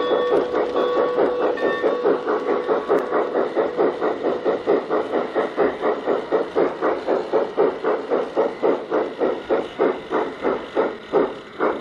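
Sound-equipped G-scale model steam locomotive chuffing through its onboard speaker, the chuffs slowing from about five a second to about two as the locomotive slows down.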